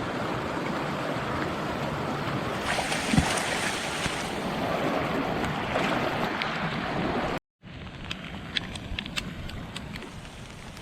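A steady rush of water. After a sudden cut about two-thirds of the way in, a quieter hiss with scattered sharp drip-like ticks.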